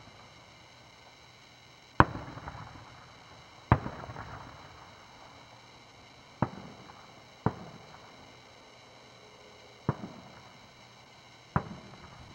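Aerial fireworks shells bursting: six sharp bangs, unevenly spaced a second or two apart, the first the loudest, each followed by a short rolling echo.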